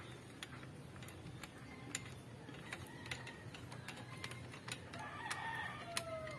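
Ratchet wrench clicking in short, scattered strokes while the oil filter cover bolts on a motorcycle engine are run in. A rooster crows about five seconds in, its call falling in pitch at the end.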